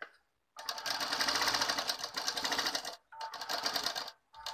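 Household sewing machine running in three bursts of rapid, even needle strokes: a long run of about two and a half seconds, a shorter one of about a second, and a brief one near the end. It is stitching a seam one presser-foot width from the fabric edge.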